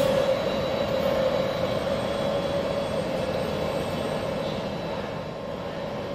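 Czech Railways class 150 electric locomotive running light and moving away: a steady whine over a rolling rumble, fading gradually.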